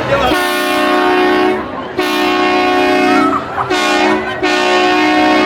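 A multi-note horn chord, train-horn style, blowing four long blasts with short breaks between them, the last held past the end.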